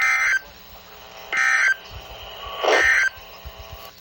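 Emergency Alert System end-of-message signal: three short bursts of SAME digital data tones, each under half a second and about 1.3 seconds apart, over a steady background hum.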